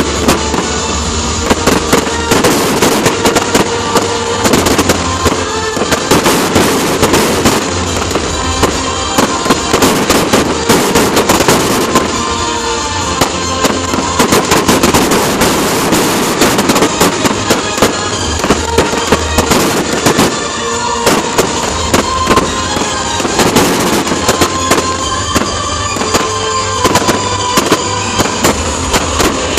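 Fireworks display: a rapid, near-continuous string of shell bursts and crackling, densest in several volleys, with music playing underneath.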